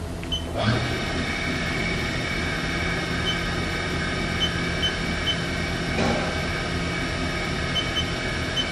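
The spindle of a 2002 Haas VF-2 CNC vertical machining center starts up about half a second in and runs steadily at 2,500 RPM, a steady whir made of many even tones.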